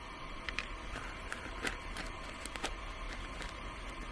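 Scattered light clicks and taps of small things being handled on a camp table, over a steady faint hiss.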